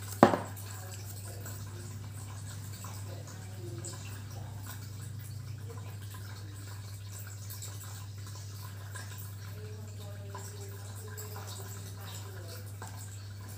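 A small glass nail polish bottle knocks once, sharply, on a tabletop about a quarter second in. After that a steady low hum runs under faint small handling sounds as the polish brush is worked.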